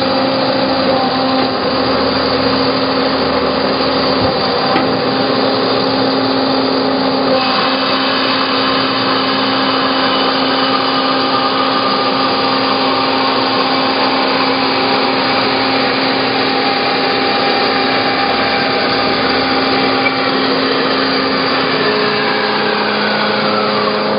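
Hyd-Mech H-16 automatic horizontal bandsaw running through a cut in bar stock: a steady motor and blade hum with sawing noise. Near the end a falling whine is heard and the hum changes.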